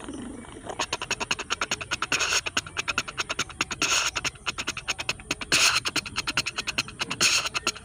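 Sound imitation made with the mouth: a fast rattle of tongue clicks with a louder breathy hiss about every second and a half.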